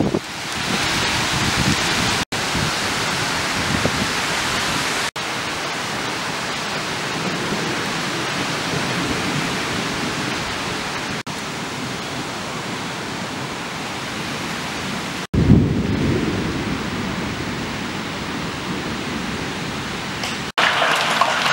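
Hailstorm: rain and hail falling steadily on the trees and grass, a dense even hiss. It drops out abruptly several times where takes are joined, and a deeper rumbling surge comes in about 15 seconds in.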